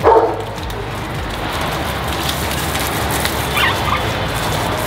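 Garden hose spraying water steadily over dogs and a gravel floor, a continuous even hiss. A short, faint dog whimper rises over it about three-quarters of the way through.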